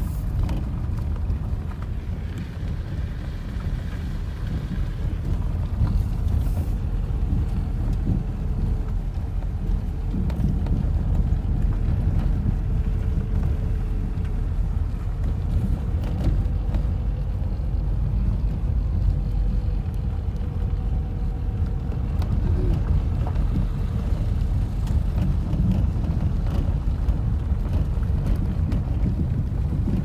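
Inside a moving car on an unpaved gravel road: a steady low rumble of engine and tyres, with a few short knocks.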